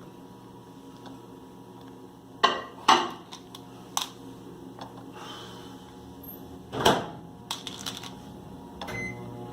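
Sharp clicks and knocks, about six of them, of a spoon and M&M candies handled on a plastic pop-it mold being filled with chocolate, over a steady low hum.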